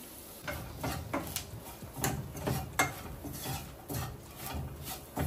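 Wooden spatula stirring fried onions and spices in a non-stick pan, with irregular scrapes and knocks against the pan starting about half a second in.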